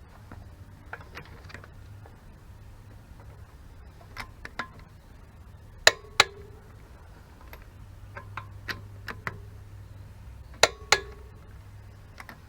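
Sharp metallic clicks from hand tools on the car's brake hardware. Two loud double clicks, each with a brief ring, come about five seconds apart, with lighter ticks scattered between them.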